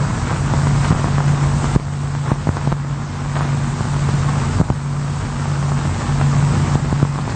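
Steady low machine drone, engine-like, with scattered light knocks and a hiss of old-film noise. The drone breaks off briefly a few times.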